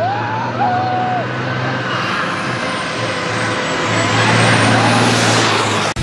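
Race vehicle climbing the hill climb course under hard acceleration, its engine pitch stepping as it shifts gears. The sound grows louder and fuller as it approaches, is loudest as it passes about four and a half seconds in, then cuts off suddenly near the end.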